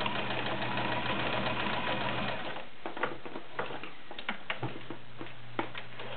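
Early-1970s Kenmore model 1601 all-metal sewing machine running steadily, sewing a cam-driven stretch stitch that feeds the fabric forward and back. It stops about two and a half seconds in, followed by a few light clicks and taps.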